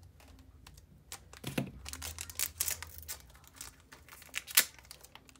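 Crinkling and scattered clicking of a foil Pokémon booster pack wrapper being handled, with one sharper click late on.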